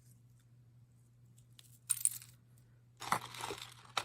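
Small metal jewelry pieces clinking and rattling together as they are handled, in a short jingle about two seconds in and a longer rattle with clicks from about three seconds in, over a low steady hum.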